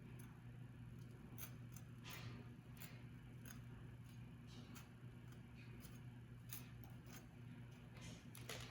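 Faint, irregularly spaced small clicks and taps over a steady low hum.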